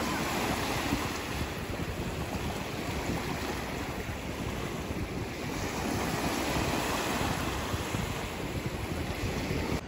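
Small river waves washing up over a sandy bank and drawing back, a steady wash that rises and falls slowly as each wave comes in, with wind rumbling on the microphone.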